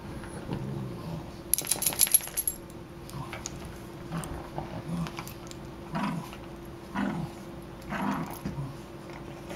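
Two small terriers play-fighting, with short low dog vocalisations about once a second. The loudest part is a quick jingle of a metal collar tag from about one and a half to two and a half seconds in.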